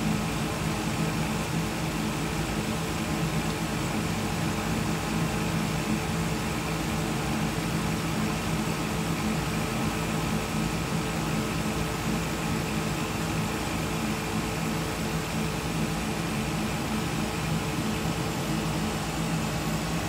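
Steady machine hum of a fan: an even whirring noise over a low drone with a few fixed higher tones, unchanging throughout.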